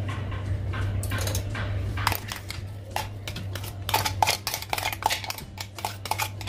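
A stainless-steel mixer grinder jar and a spoon clink and scrape against a steel bowl as ground beef is scraped out of the jar. The light metallic clicks start about two seconds in and come thicker in the second half, over a steady low hum.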